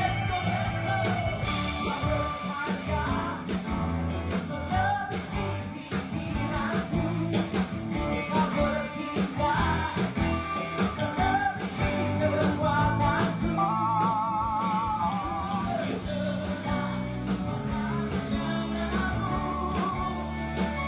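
Worship band playing a rock-style praise song: drums, bass and electric guitar with singing, and a held, wavering melody note a little past the middle.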